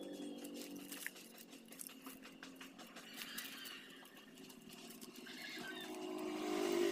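A vehicle engine running in the background, growing louder towards the end as it comes closer. Small scratchy clicks of hands working potting soil, mostly in the first few seconds.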